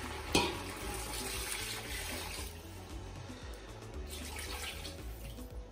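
Water poured from a bowl into a stockpot of browned goat meat, splashing in steadily and trailing off after about two and a half seconds.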